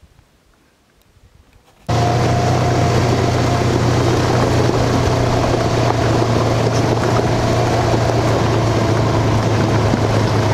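UTV engine running steadily while the vehicle drives, with a strong low hum and a wash of noise. It cuts in abruptly about two seconds in, after a nearly quiet start with a few faint clicks.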